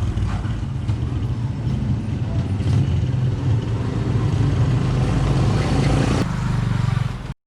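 Steady low rumble of a running engine, with faint handling noise over it. It cuts off suddenly near the end.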